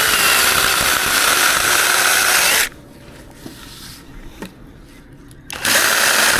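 Small electric air pump running in two bursts, the first about three seconds long, the second starting near the end, as a mattress is inflated.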